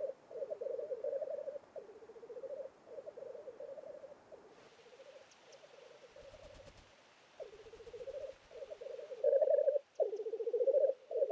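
Male black grouse giving their bubbling, cooing display song: a string of rolling, warbling phrases about a second each, one straight after another, louder near the end.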